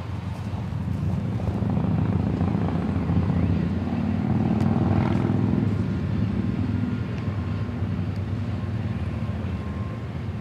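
Diesel freight locomotive engine running as the train moves past, a low steady drone that grows louder about two seconds in. Light wind buffets the microphone.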